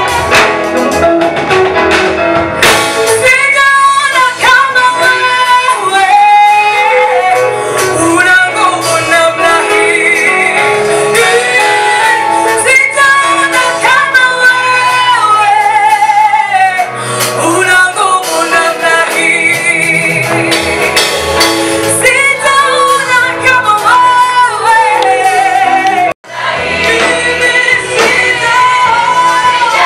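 A gospel choir singing a Swahili praise song, with female voices prominent and audible vibrato on held notes. The sound cuts out for an instant about 26 seconds in, then the singing carries on.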